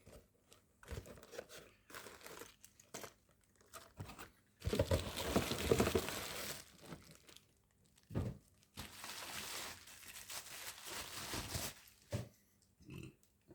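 Plastic packaging crinkling and tearing as the radio transmitter is unwrapped, in irregular bursts with a few handling clicks; the loudest stretch of rustling comes about five seconds in.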